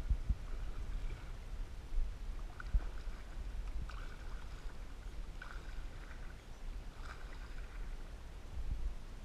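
A canoe being paddled: short paddle-stroke splashes about every second and a half over a steady low rumble, with a few dull knocks against the hull.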